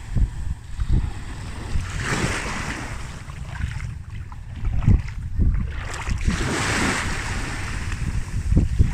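Waves washing up on a beach, the surf swelling twice and falling back, with wind gusting across the microphone.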